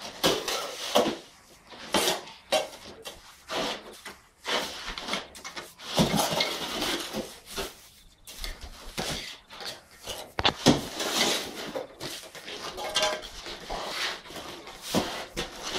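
Trowels scraping and clinking as wet cement mortar is packed and smoothed into a round lid mould, in irregular strokes and knocks.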